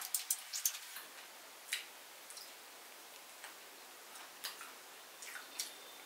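Faint, irregular clicks and ticks, about eight in six seconds, from someone chewing chicken feet.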